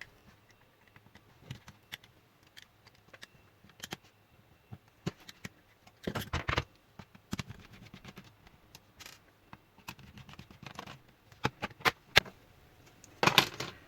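Irregular small clicks, taps and scrapes of the plastic laptop body and hinge parts being handled and taken apart, with a louder cluster about six seconds in and again near the end.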